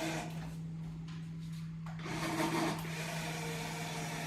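Small electric motor of a toy remote-control car whirring, falling away about half a second in and starting up again about two seconds in, over a steady low hum.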